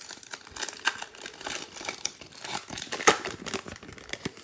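Foil wrapper of a Panini Player of the Day basketball card pack crinkling as it is torn open, a dense run of irregular crackles, loudest about three seconds in.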